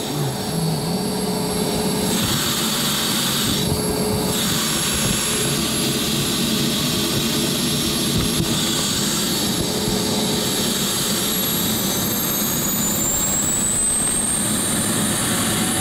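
BD-5J microjet's small Microturbo TRS-18 turbojet running, heard from the cockpit as a steady roar. A high whine rises in pitch over the last few seconds.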